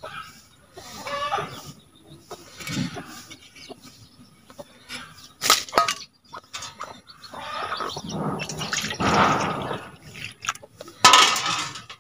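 Water sloshing and splashing as snail meat is rinsed in a steel bowl, a metal clink as a steel plate is set over the bowl about halfway, then the rinse water poured off onto the ground in a longer splashing stretch near the end.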